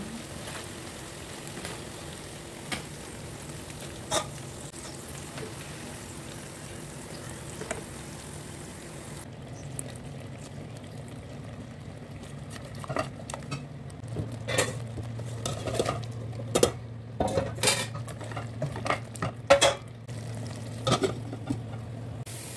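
Eggplant slices frying in oil with a steady sizzle, then, after a cut, a wooden spoon stirring curry in a steel pot, knocking and scraping against the metal many times in the second half.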